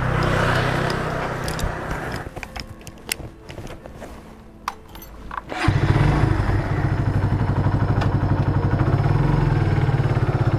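Motorcycle engine starting about halfway through, then idling with a steady, even putter. Before it, a few light clicks and handling sounds.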